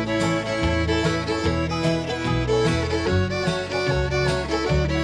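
Instrumental break of a bluegrass-country song: a fiddle carries the melody over strummed guitar and a walking bass.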